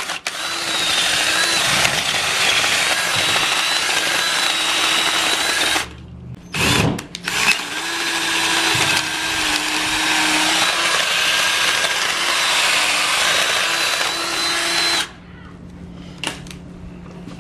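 Cordless drill running with its bit inside a boiled goat skull, grinding out bone and tissue from the cavity, with a steady motor whine. It runs about six seconds, pauses briefly, then runs again for about seven seconds and stops a couple of seconds before the end.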